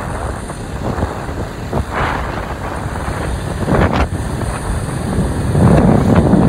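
Wind rushing over a helmet-mounted microphone on a moving Bajaj Pulsar NS200 motorcycle, with engine and road noise underneath. The rush grows louder about five and a half seconds in.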